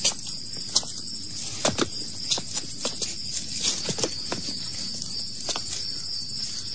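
Night-time ambience of crickets chirring steadily, with light, irregular clicks and knocks scattered through.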